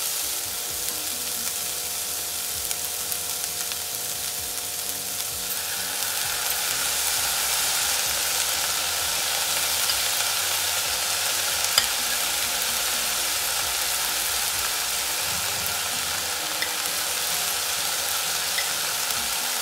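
Stir-fried vegetable stuffing sizzling in hot oil in a non-stick wok, a steady hiss that grows a little louder about six seconds in, with a sharp tick or two.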